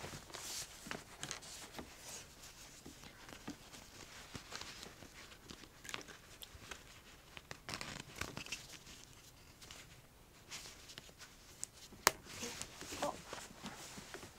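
Soft, irregular fabric rustling and rubbing as a pair of doll-sized jeans is worked onto a ball-jointed doll body, with small handling scrapes and one sharp click about twelve seconds in.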